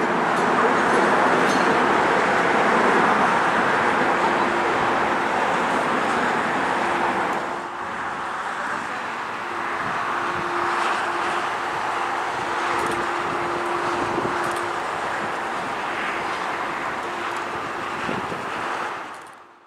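Distant jet airliner engines running on a Boeing 737-9 MAX, heard as a steady rushing noise with a faint hum. The sound drops in level abruptly about eight seconds in and fades out at the end.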